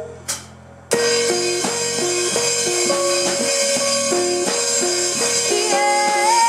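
Live rock band with electric guitar, bass guitar and drum kit: the music breaks off briefly with a single hit, then the band comes back in about a second in with a repeated stepped riff. A held note that wavers in pitch enters near the end.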